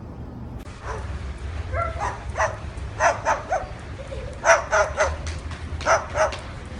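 A small dog barking in short, high-pitched yips, coming in quick groups of two or three.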